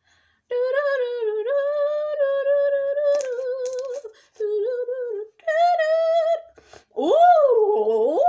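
A person humming a tune in long held notes, beginning about half a second in and broken by short pauses, then a louder wavering call sliding up and down in pitch near the end.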